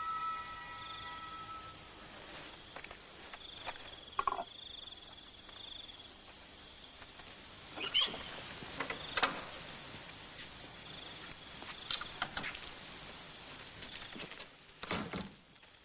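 Steady chirring of crickets, with a few scattered soft knocks and scuffs. Background music fades out during the first two seconds.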